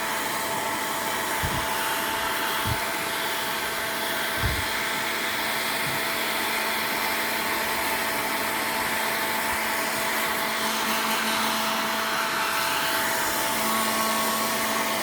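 Hair dryer running steadily, blowing on a kitten's fur after its bath, with a steady motor whine under the rush of air. A few faint low bumps come in the first few seconds.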